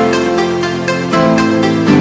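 Electronic background music with a steady beat under sustained chords.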